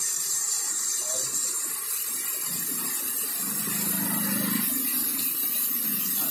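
Heavy monsoon rain pouring steadily onto a street and the surrounding trees and cars, a dense even hiss. About halfway through, the low hum of an auto-rickshaw's engine rises and fades as it drives past on the wet road.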